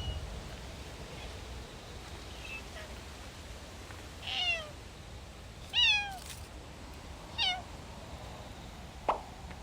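A cat meowing three times, about a second and a half apart, each call falling in pitch, with a few fainter calls before them. A short sharp click near the end.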